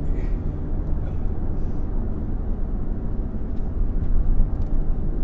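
Steady engine and road noise inside the cabin of a moving Honda Pilot SUV: a low, even rumble with no sharp events.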